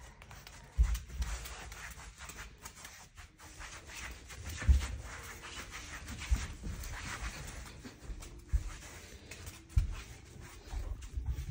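English bulldog puppy breathing noisily and snuffling as she moves about, with a few dull low thumps, the loudest about halfway through.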